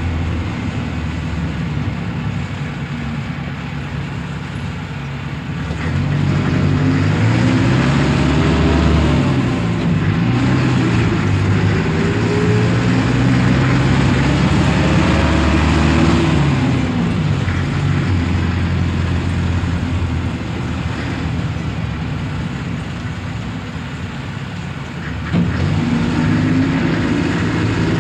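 Two-ton diesel truck engine heard from inside the cab, running steadily. About six seconds in it picks up, and its pitch rises and falls for several seconds before easing back. Near the end it picks up sharply again.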